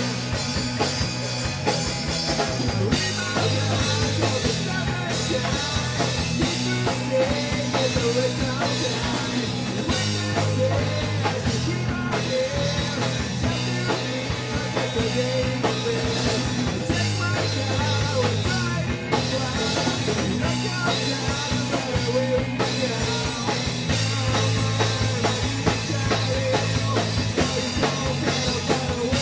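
Live rock band playing loud and steady, with drum kit and electric instruments over a steady bass line.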